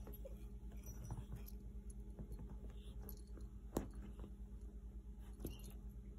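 Faint rustling and scuffing of a cat batting at a string toy on a leather couch, with a sharp click a little under four seconds in and a smaller one about a second and a half later.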